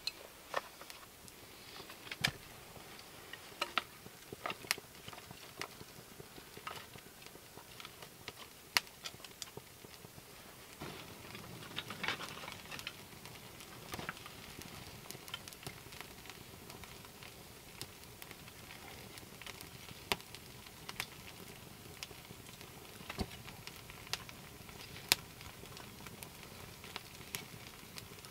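Young campfire of yellow pine kindling crackling, with irregular sharp snaps and pops over a low hiss of burning, and the odd knock and rustle of split kindling being laid on.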